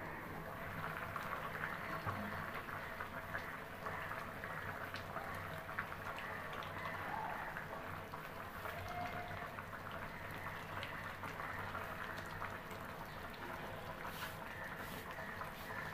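Fish and vegetable curry simmering in an open pan: a steady soft bubbling and crackling, with a few light taps near the end.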